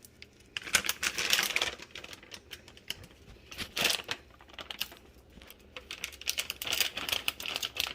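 Chopped pecans being handled and scattered by hand: a run of sharp, irregular clicks and rustling, with long fingernails clicking as they work.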